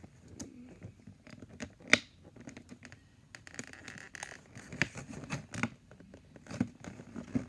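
Doll box packaging handled as the doll is worked loose from it: scattered rustling and scratching with sharp clicks, the loudest about two seconds in.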